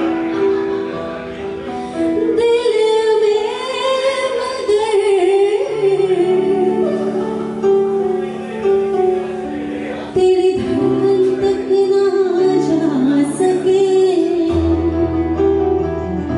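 Live Hindi pop ballad: a woman singing into a microphone over sustained keyboard chords, with electric guitar and a cajon. The voice comes in about two seconds in, over the held keyboard notes.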